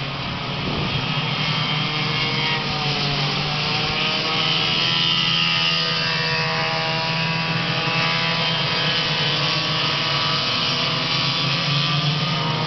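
A pack of racing go-karts' small engines running at high revs, several engine notes at once whose pitch rises and falls as karts pass.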